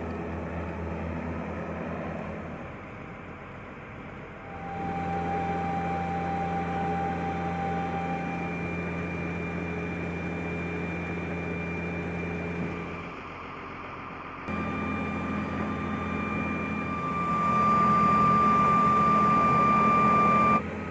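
Airbus A400M turboprop engines running, a steady drone with a high whine over it. The pitch and level jump suddenly several times, about four seconds in, twice between thirteen and fifteen seconds, and near the end, where the whine grows loudest before dropping away.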